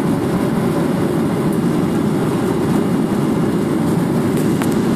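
Airliner's engines at take-off power, heard as a steady, loud rumble from inside the passenger cabin as the plane climbs just after lift-off.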